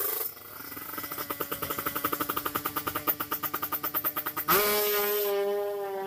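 Drag-race motorcycle engine running at the start line with a fast, even pulsing beat, then revved hard and launched about four and a half seconds in. Its high, steady note fades as the bike speeds away down the strip.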